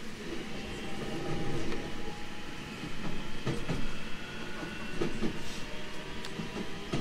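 Running sound of a JR Central 313 series 2500 subseries electric train under way: a steady rumble with a faint whine, and the wheels clicking now and then over rail joints.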